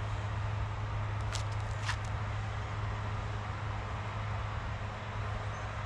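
Steady low background hum, with two faint clicks about a second and a half and two seconds in.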